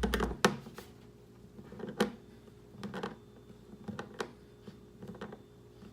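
A few scattered light clicks and taps from hand work on screws and a plastic deck plate, with quiet room tone between; a low hum stops about a third of a second in.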